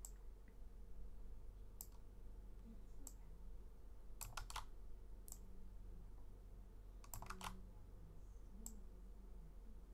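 Faint computer clicks, mouse or key presses, sparse and scattered, with two quick runs of several clicks about four and seven seconds in, over a low steady electrical hum.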